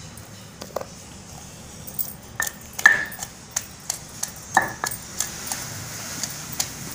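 Pestle pounding raw onion pieces in a granite stone mortar, crushing them coarsely for an onion-chilli paste. Sharp, irregular knocks with a short ring: a couple of strokes in the first two seconds, then about two to three a second.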